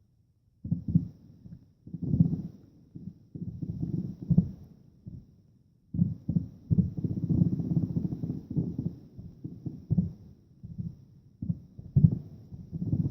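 Fireworks going off about six miles away: a rapid string of low, muffled booms that overlap into a rolling rumble, coming thicker from about six seconds in.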